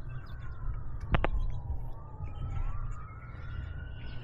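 A wailing siren, its pitch sliding slowly down and then back up, over a steady low rumble. A sharp double click about a second in.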